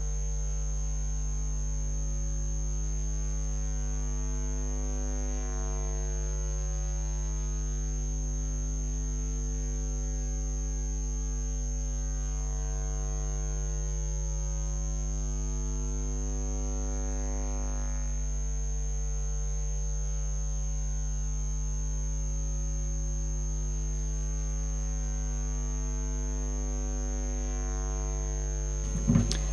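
Steady electronic hum: a drone of several held tones with a thin high whine above them, unchanging in level throughout.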